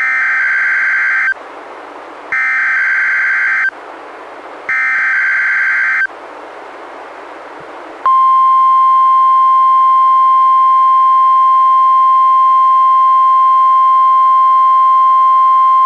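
NOAA Weather Radio warning-alarm test: three short bursts of screeching digital SAME header tones, about a second apart. About eight seconds in, the loud steady 1050 Hz warning alarm tone begins.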